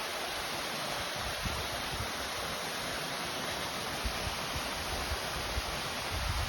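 Waterfall: a steady rush of falling and splashing water, with some low wind buffeting on the microphone.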